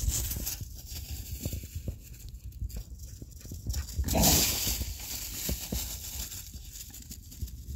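A Boykin spaniel at play, giving one short, loud vocalization about four seconds in, over low thumps and rumble.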